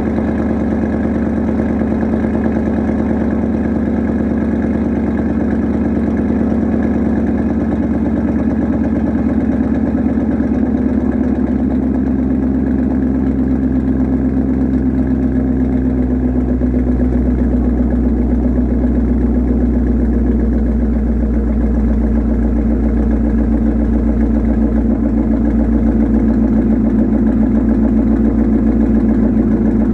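2020 Ford Mustang GT's 5.0-litre V8 idling steadily after a cold start, heard through a straight-piped MBRP cat-back exhaust.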